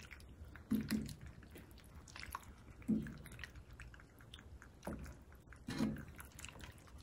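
A wooden spoon stirs rigatoni through a thick, creamy sauce in an enamelled pan, making wet squishing sounds. There are about four louder scrapes or knocks of the spoon against the pan, with small clicks between them.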